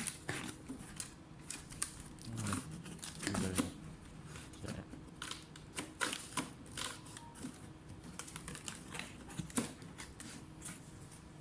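Irregular small clicks and scrapes of hands and tools working on a laptop's case and parts, with denser handling noise a few seconds in.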